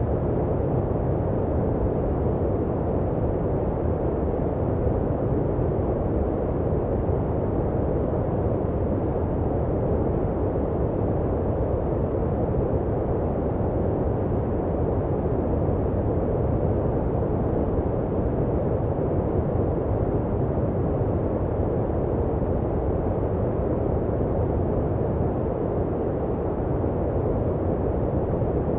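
Steady electronically generated noise for sleep: a deep, even rushing sound with little hiss, closer to brown noise than to flat white noise, unchanging throughout.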